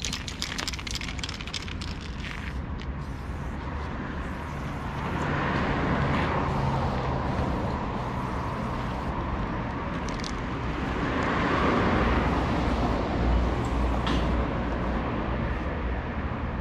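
City street traffic: a steady low rumble with two cars passing, swelling and fading. A quick run of sharp clicks or rattling in the first two seconds, and a couple of single clicks later.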